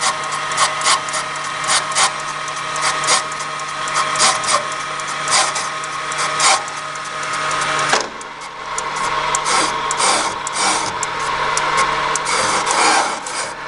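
Machine spindle turning a ground 20-degree cutter that scrapes and chatters against the cast-iron wall of a Holden 308 V8 cylinder head's combustion chamber, relieving it out to the gasket line. A steady motor hum stops about eight seconds in while the cutter's scraping goes on.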